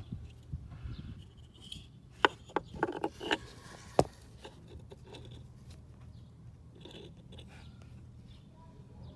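A handful of sharp clicks and knocks, as of small parts being handled in a car's footwell, bunched about two to four seconds in, over a faint steady low hum.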